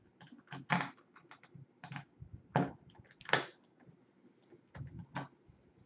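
Key being turned and the lock worked on a Globe-Trotter suitcase's latch by a gloved hand: a string of irregular small clicks and short scrapes, with a few louder ones in the middle.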